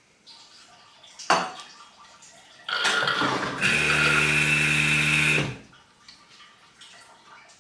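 Lelit Bianca espresso machine running water or steam into a small stainless cup for about three seconds, with a steady hum under a hiss, then cutting off suddenly. A sharp clink comes about a second in.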